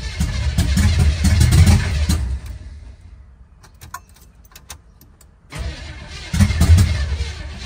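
Starter cranking the 1972 Impala's 468 big-block V8 in two tries, with a few light clicks in the pause between them. The engine does not settle into running.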